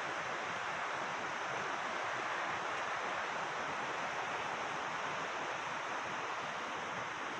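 Steady, even rushing of a river's flowing water.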